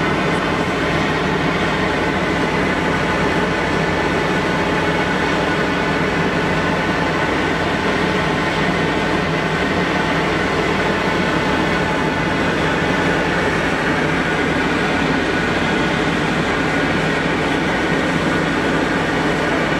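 Potato fries deep-frying in a large vat of hot oil: a steady, even sizzle.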